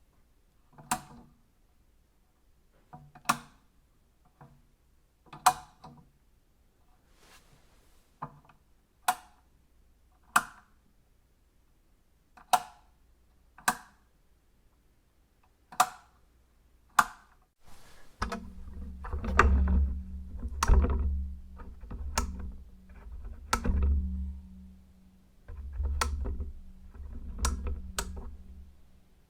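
Switches being flipped on and off: sharp single clicks every second or two. About 18 seconds in, a louder stretch of clicks begins, with a steady low hum underneath.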